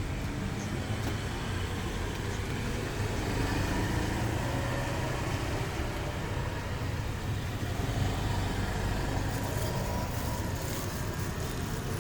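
Road traffic: the steady low rumble of vehicles running on a nearby road, a little louder a few seconds in, with faint light clicks near the end.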